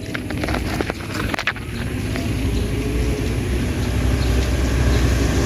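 A motor vehicle's engine running on the street, a low rumble that grows steadily louder from about two seconds in. A few sharp clicks come in the first second and a half.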